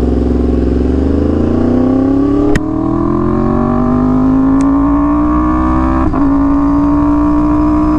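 Sport motorcycle engine pulling away from a stop, its revs climbing steadily, with two brief breaks where it shifts up, about two and a half and six seconds in.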